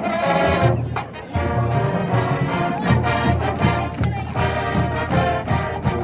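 High school marching band playing a loud brass-led piece backed by drums and front-ensemble percussion, with a short break about a second in before the full band comes back in.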